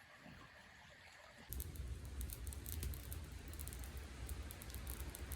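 Faint outdoor ambience: a low steady rumble with light, irregular pattering ticks, starting about a second and a half in after near silence.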